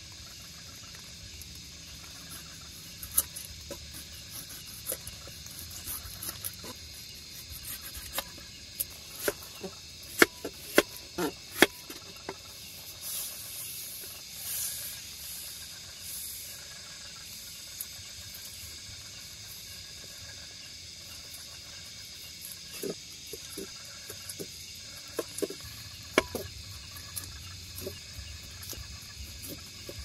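Folding knife slicing a tomato and a sausage into rounds on a wooden cutting board: a series of sharp taps as the blade meets the board, with a run of loud ones about ten seconds in. A steady cricket chorus goes on underneath.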